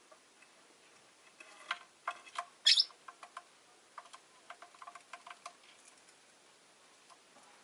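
Rosy-faced lovebird giving a run of short chirps and clicks, with one louder, higher chirp about a third of the way in; the calls stop for the last couple of seconds.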